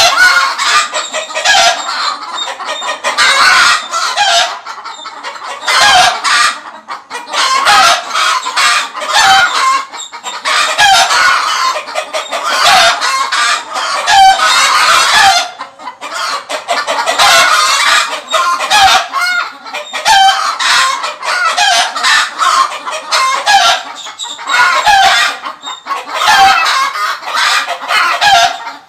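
A crowd of chickens, hens clucking continuously with roosters crowing among them, many calls overlapping without a break.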